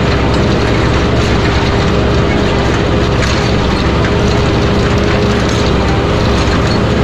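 83-horsepower Mahindra diesel tractor engine running steadily under heavy load while pulling a 9-shank chisel plow through hard, compacted ground, with a few faint knocks from the plow.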